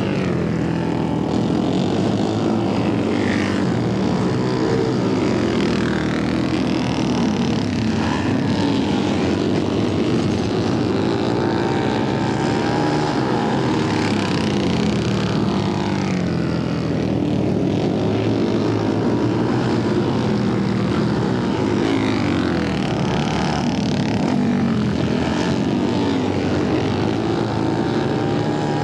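Several flat-track racing motorcycle engines running on a dirt oval, their pitch rising and falling again and again as the riders throttle up and back off, with more than one engine heard at once.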